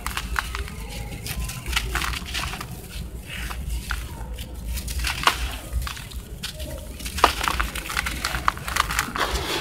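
Hands crushing and crumbling dry sand-and-cement balls: gritty crunching with many sharp crackles as the lumps break, and loose grit pouring back into the bucket. The crackling grows busier about halfway through.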